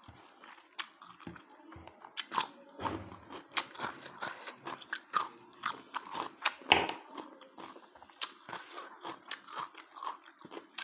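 Close-miked chewing and biting of food: a string of irregular wet mouth smacks and crunches.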